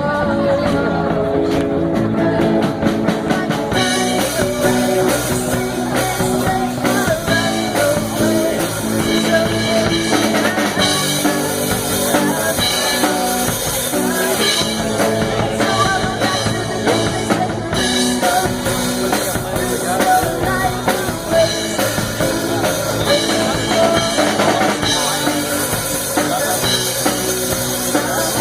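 Rock music playing: a band with drum kit and guitar, and a voice singing the melody.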